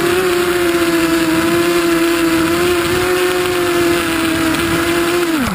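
Hexacopter motors and propellers heard from the onboard camera, a steady high whine that wavers slightly in pitch, then spins down with a quickly falling pitch near the end.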